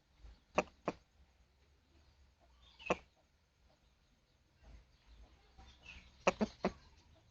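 Rooster clucking a few times in short, sharp clucks: a pair early on, a single one about three seconds in, and a quick run of three a little past six seconds.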